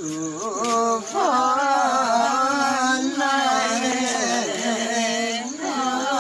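Unaccompanied Limbu palam singing: one voice holding long, wavering, ornamented notes, louder from about a second in.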